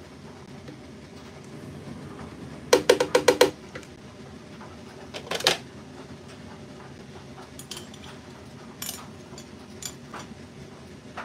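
A small plastic pot knocked quickly against the rim of a plastic blender jug, about six sharp knocks in under a second, to get the last of the yogurt out. A couple more knocks follow about two seconds later, then a few light clicks.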